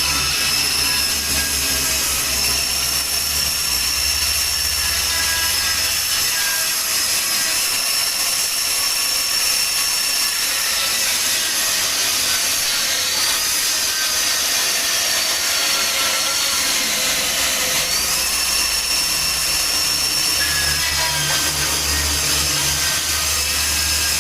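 Bandsaw machine running and sawing, with a steady high whine that sags in pitch about halfway through and jumps back up a few seconds later.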